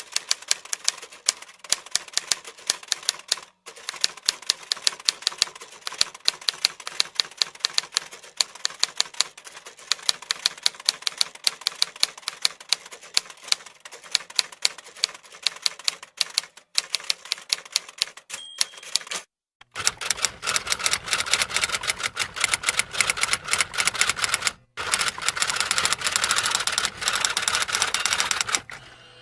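Typewriter keys striking in quick, continuous typing, many clicks a second with a few brief pauses. About twenty seconds in the clatter becomes denser and fuller.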